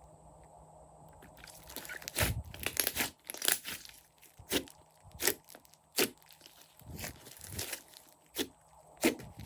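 Slime being pressed and squeezed by hand, giving irregular crackling clicks and pops. It starts after a short quiet stretch.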